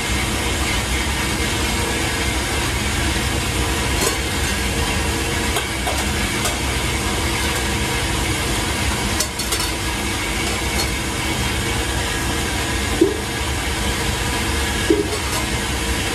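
Steady machine roar of a commercial kitchen, the running of exhaust fans and gas burners under steaming stockpots, with two light clinks near the end.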